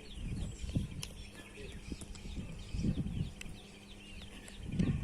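Small birds chirping over and over, many short falling chirps, with a couple of low muffled bumps about three seconds in and near the end.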